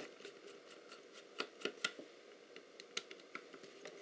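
Small screwdriver working the screws of a Lomo LC-A camera's bottom cover: a few scattered light metallic clicks and ticks as the tip seats and turns.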